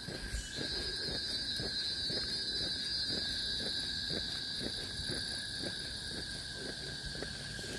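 Insects buzzing in the forest: a loud steady high buzz starts about half a second in and holds, over a fainter steady whine, with footsteps on the paved path underneath.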